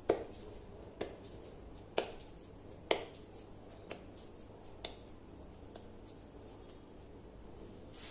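Hands patting and pressing a flour-dusted ball of dough, making short sharp slaps about once a second that fade out after about six seconds.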